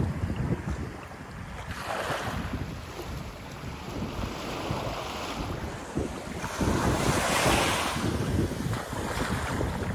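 Small waves breaking and washing up a sandy beach, with gusty wind buffeting the microphone. The surf wash swells twice, about two seconds in and louder around seven seconds in.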